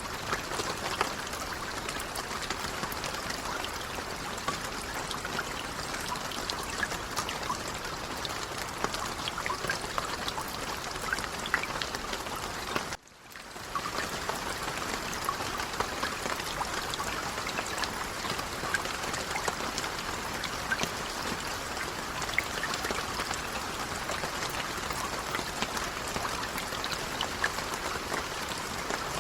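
Light rain falling, a steady patter of many small drops. About halfway through the sound briefly drops out and fades back in.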